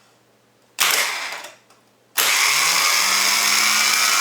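Volvo EC14B/EC15B mini excavator starter motor on a bench test, fitted with a swapped-in solenoid: a short burst about a second in, then about two seconds in it engages and spins freely with a loud, steady whir, its pitch rising slightly as it comes up to speed. The starter and solenoid combination works.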